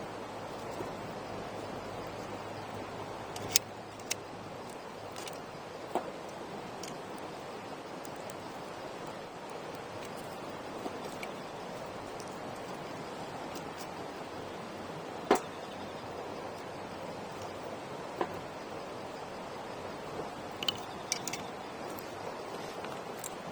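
Wood campfire burning with a steady low hiss, broken by sharp, irregular crackles and pops from the burning wood, a cluster of them near the end.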